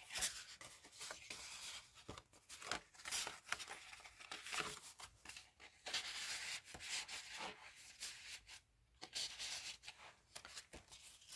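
Paper rustling and sliding as a junk journal's pages are handled: a paper tag is drawn out of a page pocket and slid back in, with irregular soft rubs and light taps.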